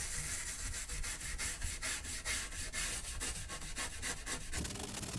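Toothbrush bristles scrubbing the plastic case of a Commodore Plus/4 computer in quick back-and-forth strokes.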